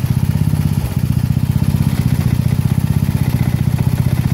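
A 1970 Sears Suburban lawn tractor's 16 hp Tecumseh OH160 single-cylinder engine runs steadily with a fast, even exhaust beat. There is a brief dip in its note about a second in.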